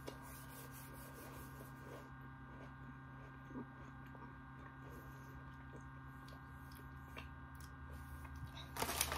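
Faint crackle of popping candy in a closed, chewing mouth, as scattered tiny clicks over a steady electrical hum. Just before the end, loud crinkling of a plastic wrapper starts.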